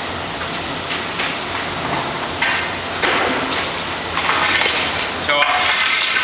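Scattered metal knocks and clatter over a steady low machine hum, with voices near the end.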